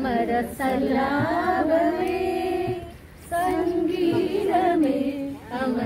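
A woman singing unaccompanied: two phrases with long, wavering held notes, with a short break about three seconds in.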